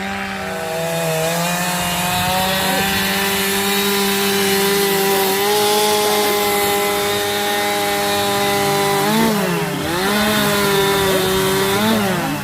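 Chainsaw running at high revs, cutting wood; its pitch holds steady, then sags and recovers twice, about nine seconds in and again near the end.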